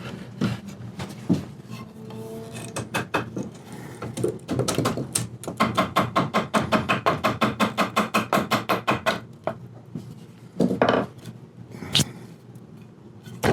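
Knocks and handling on a wooden chair as work on it begins, with a run of rapid, evenly spaced sharp ticks, about eight a second, lasting some four seconds midway, and a couple of single knocks near the end.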